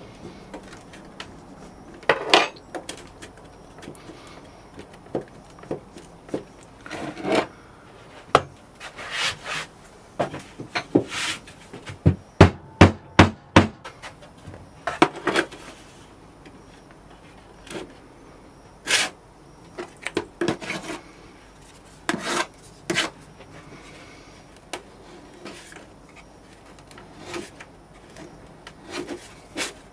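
Casting sand being worked into a sand-casting flask by hand and with a spoon: irregular scraping and dull knocks, with a quick run of sharp taps around the middle. Near the end a plastic scraper strikes the sand off level across the flask rim.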